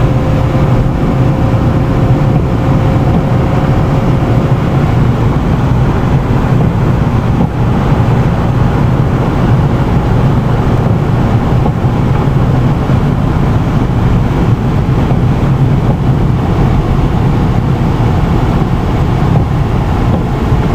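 Steady road and engine noise of a car driving at moderate speed, heard from inside the cabin, with a faint steady tone for the first few seconds.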